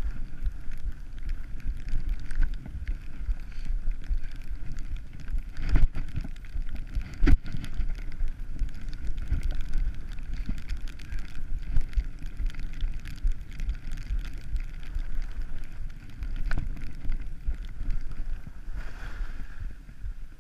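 Wind buffeting the microphone of a skier on a downhill run, a steady low rumble, with the skis sliding over packed snow. A couple of sharp knocks stand out, about six and seven seconds in.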